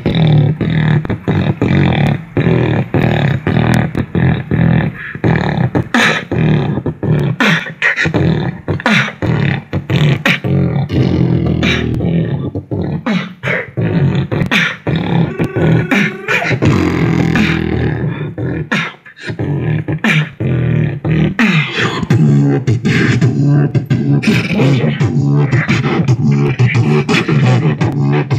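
Beatboxing into a handheld microphone: a fast run of clicks and snare-like sounds over a steady hummed bass, with a short break about two-thirds of the way through.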